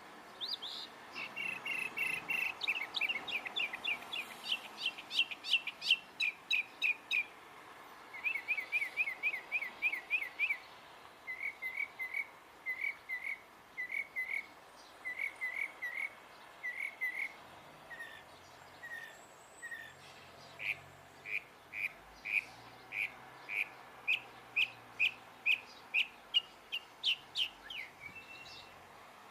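A songbird singing a long, varied song of chirping notes, each note type repeated several times in a quick series before switching to a different one.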